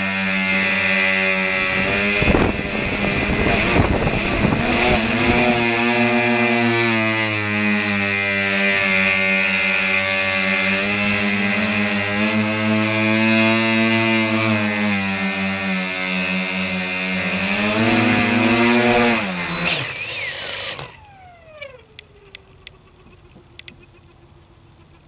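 Drone's electric motors and propellers whining steadily in flight, the pitch sagging and rising a little as it manoeuvres. Near the end the pitch drops, there is a sharp knock, and the motors cut out as the drone comes down in the grass, leaving a falling whine as a motor spins down.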